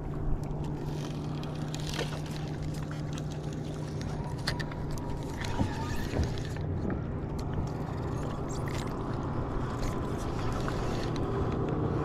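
A boat motor humming steadily, with scattered clicks and knocks from a spinning reel and rod being worked.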